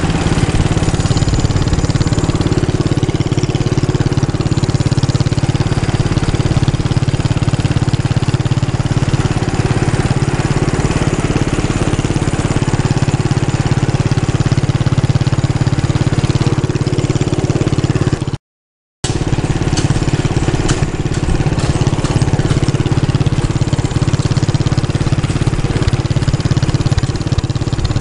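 Engine of the vehicle towing a wagon ride running steadily at an even pace, heard from one of the towed carts. The sound cuts out completely for about half a second roughly two-thirds of the way through.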